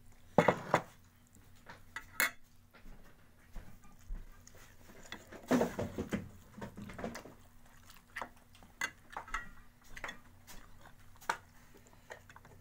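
A person eating fried chicken: chewing and mouth sounds with scattered clicks and clinks of dishes, the loudest about half a second in and again around five and a half seconds.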